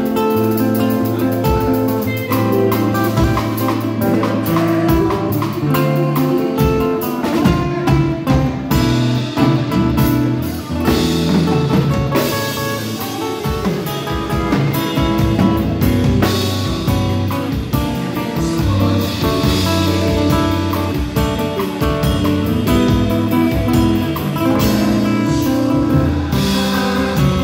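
Nylon-string electro-acoustic guitar playing a melody over bass and drums.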